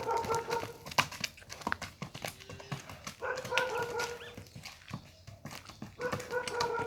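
An animal's long, even-pitched call, heard three times about three seconds apart, over scattered clicks and knocks.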